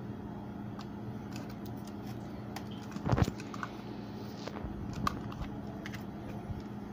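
Small clicks and rattles of a plastic rotary selector switch and a timer relay being handled, with a louder clack about three seconds in and another near five seconds, the switch knob being turned. A steady low hum runs underneath.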